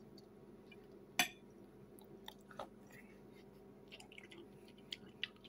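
Quiet eating sounds: a knife and fork clicking on a plate, with one sharp click about a second in and a few softer ticks, and faint chewing, over a steady low hum of the room.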